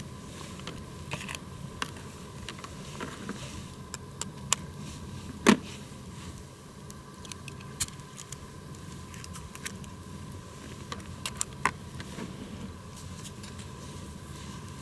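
Campfire crackling: irregular sharp pops and clicks over a steady low background noise, with one louder pop about five and a half seconds in.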